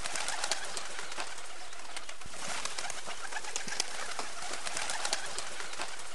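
A flock of feral pigeons cooing over a dense, steady crackle of small clicks and rustling.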